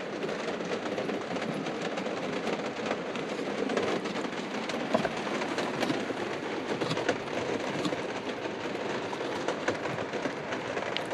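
Heavy rain falling on a motorhome's roof, heard from inside: a steady rush of noise scattered with many small ticks of drops.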